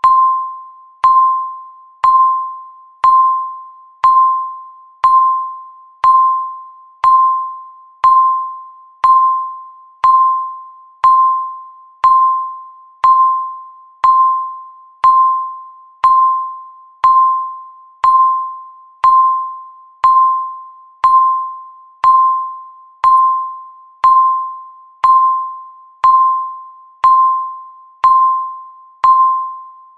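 Countdown timer's electronic beep, once every second: a single pitched tone that starts sharply and fades away before the next, repeating evenly about thirty times.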